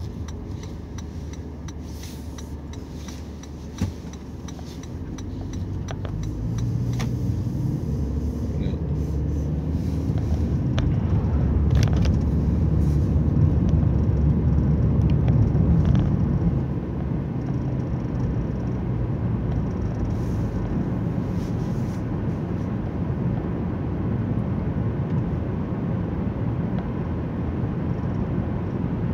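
Inside the cabin of a 2018 Toyota Prius Prime, its 1.8-litre four-cylinder petrol engine runs under road noise as the car accelerates from a stop. The low rumble swells with throttle to its loudest a little past halfway, then drops suddenly to a steadier cruise level. The engine is running in EV mode to heat the cabin in the cold, and its revs follow the gas pedal.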